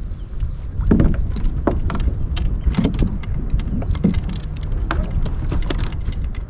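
Handling noise on a fishing kayak: scattered knocks and clicks, the loudest about a second in and again near three and four seconds, over a steady low wind rumble on the microphone.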